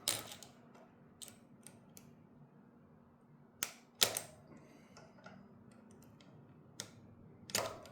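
Scattered small metallic clicks and taps of long-nose pliers working at the select cable fitting on a bicycle's internal gear hub, the loudest about four seconds in.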